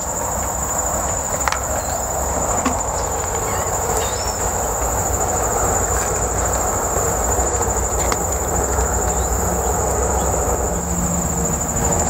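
Steady high-pitched chorus of singing insects over a broad, distant low rumble that swells through the middle and eases near the end. A few faint ticks come through.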